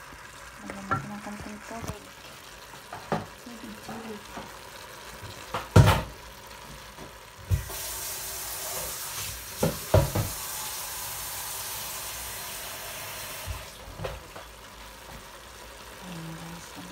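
Wooden spatula stirring chicken feet in a metal cooking pot, knocking and scraping against the pot several times, loudest about six seconds in. A steady hiss runs for several seconds in the middle.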